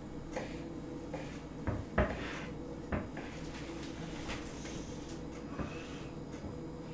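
Kitchen knife knocking on a cutting board as cooked chicken breast is chopped into bite-sized pieces: a handful of separate, irregular knocks over a faint steady hum.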